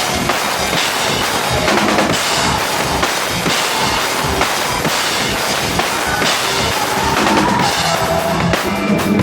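Loud live rock music from a band on stage, with the drum kit prominent: bass drum and snare hitting steadily throughout.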